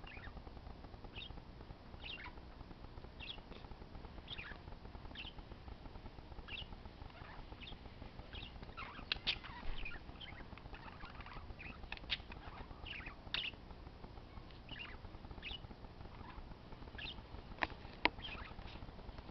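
Parakeets chirping: short high chirps, one or two a second. A few sharp clicks come through loudest, a little past halfway and near the end.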